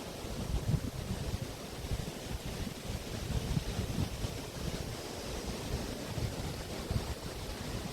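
Waves breaking and washing on the Río de la Plata beach shore, a steady hiss of surf, with wind gusting against the microphone in low, irregular rumbles.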